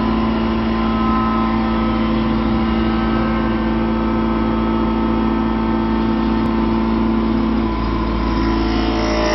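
CNC wood lathe running, a steady mechanical hum made of several steady tones, the strongest a low one; the mix of tones shifts a little about eight seconds in.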